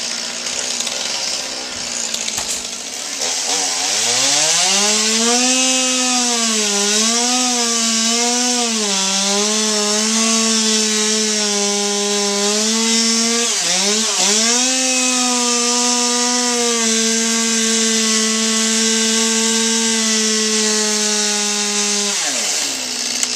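Chainsaw cutting: the engine revs up about three seconds in, its pitch dips and recovers several times under load, drops briefly near the middle, then holds steady at full throttle before winding down near the end.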